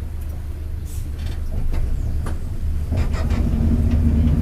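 Mercedes-Benz OF-1721 BlueTec 5 city bus under way: its four-cylinder diesel runs with the driveshaft rumbling low beneath it, and short rattles come through. About three seconds in, the engine note firms up and gets louder as the bus pulls harder.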